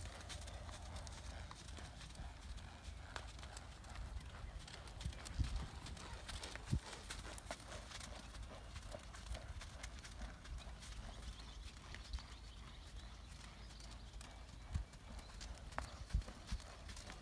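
Horse's hoofbeats on the dirt footing of a round pen as it lopes under a rider: an uneven run of soft thuds and knocks, with a few sharper ones in the middle, over a steady low rumble.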